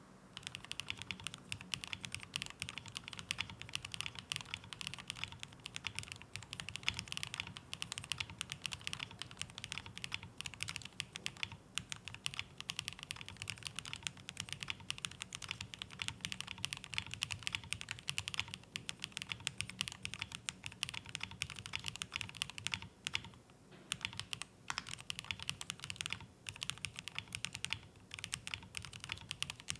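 Continuous fast typing on a Wooting 60HE+ keyboard with Gateron Magnetic Jade Max hall-effect switches and PBT Cherry-profile keycaps, mounted on a friction pad in an Optimum case: a quiet, dense run of keystrokes, with two short pauses about three-quarters of the way through.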